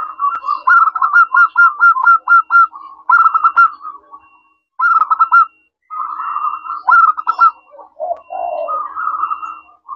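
Zebra dove (perkutut) singing: phrases of rapid, staccato cooing notes, about four a second, broken by short pauses about four and six seconds in.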